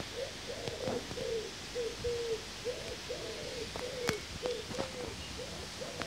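A pigeon cooing: a long run of low hooting notes in repeating phrases. Under it is a steady hiss of wind on the microphone, and a sharp click comes about four seconds in.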